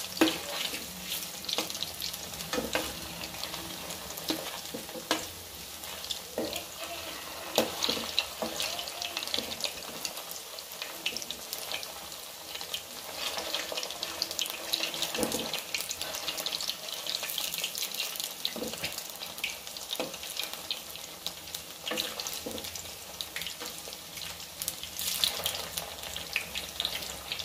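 Chira pitha balls deep-frying in hot oil in a kadai, the oil sizzling and crackling steadily, with a few sharp clicks of a metal spatula touching the pan.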